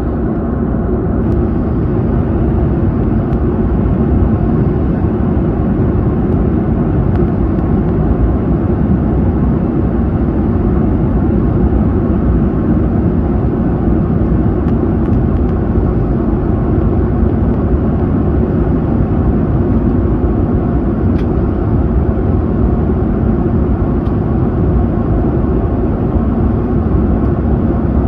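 Steady low rushing cabin noise of a Korean Air Airbus airliner at cruise altitude: engine and airflow noise heard from a window seat, even throughout, with a few faint ticks.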